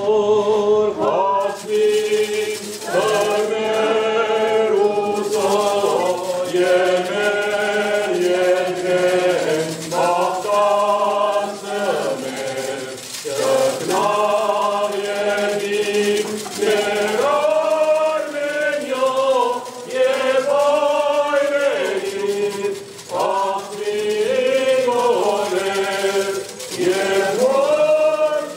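A choir chanting slowly, with long held notes that rise and fall, over a steady low note sustained beneath the voices.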